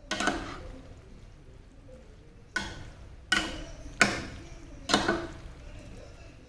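Kitchenware clinking: five sharp knocks, each with a short ring, spread unevenly over the few seconds.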